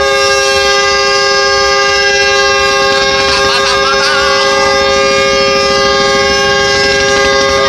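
A loud, steady two-tone horn blast that starts abruptly and is held unbroken throughout.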